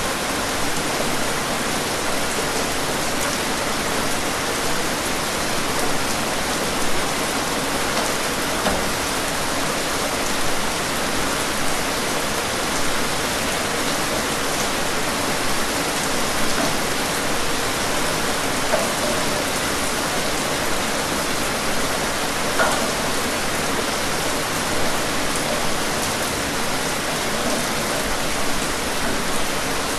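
Steady rain falling: a dense, even hiss with a few louder drop hits here and there.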